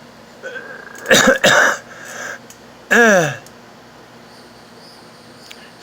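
A person breathing with stridor: harsh, high-pitched noisy breaths through a narrowed upper airway. A loud, whistling breath comes about a second in, and a shorter one with a falling pitch near the middle.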